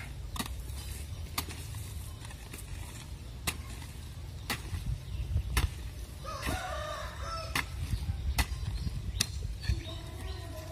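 Steel hoe blade striking into soil about once a second as earth is worked around a planted sapling's root ball. A rooster crows once, about six seconds in.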